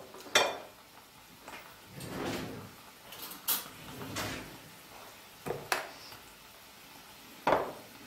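A spatula stirring a thick yogurt and tomato paste mixture in a glass bowl, making a series of irregular short knocks and scrapes against the glass, with one more sharp knock near the end.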